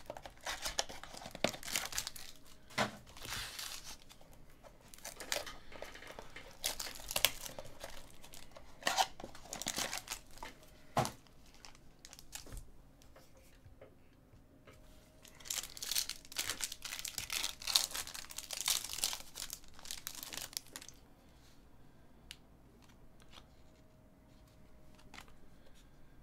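Foil trading-card pack wrappers crinkling and tearing as they are pulled open by hand, in repeated bursts of crackling. Near the end it goes softer, with light ticks of the cards being handled.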